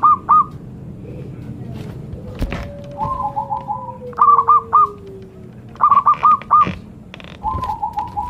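Zebra dove (perkutut) song: bursts of three or four short, clipped coos alternating with a rolling, trilled coo, repeated several times.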